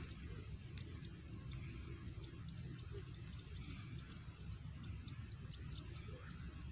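Faint, high-pitched chirps from small animals in the field, several a second in an uneven rhythm, over a low rumble of wind on the microphone.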